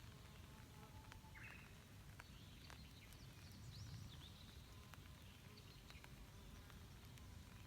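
Faint light rain at a lake: scattered drips over a low, steady rumble, with a few faint bird chirps about a second and a half in and again around three seconds.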